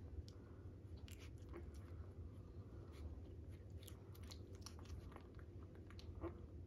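Newborn Labrador puppy suckling at its mother's teat: faint, irregular wet smacking clicks over a low steady hum.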